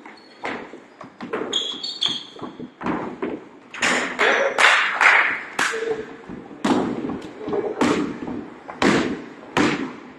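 Basketball game on a hardwood gym court: the ball thudding on the floor and players' feet landing, irregular and echoing, with sneakers squeaking about two seconds in.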